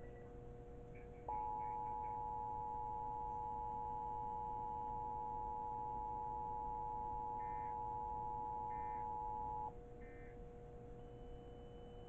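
Emergency Alert System attention signal played by a Sage EAS ENDEC relaying a required monthly test: a steady two-tone alert tone that starts about a second in, holds for about eight seconds and cuts off abruptly. It marks the start of the alert's voice message. A faint steady hum runs underneath.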